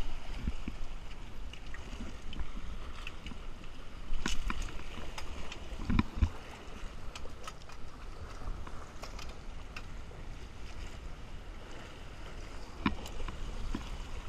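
Water sloshing and lapping, with a steady low rumble, and a few sharp clicks and knocks of fishing gear being handled, the loudest about four and six seconds in.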